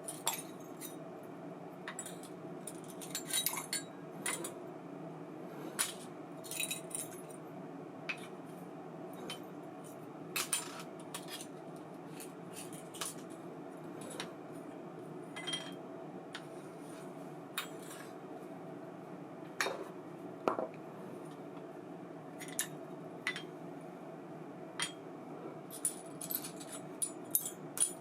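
Small metal parts and tools clinking and tapping at irregular intervals while a baitcasting reel is worked on, over a steady low hum.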